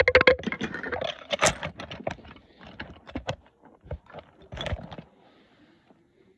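Rapid clattering and scraping of small hard objects being handled: many quick clicks, loudest in the first two seconds, thinning out and stopping about five seconds in.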